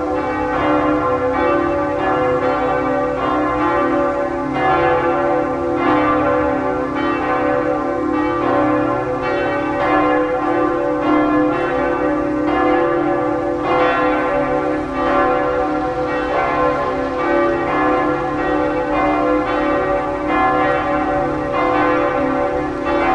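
Several church bells pealing together, a fresh strike coming about once or twice a second over the continuous ringing of the others.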